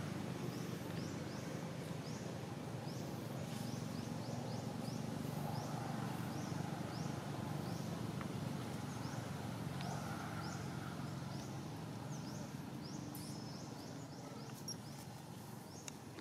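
Outdoor forest ambience: a steady low background hum with a short, high, upward chirp repeating about once or twice a second.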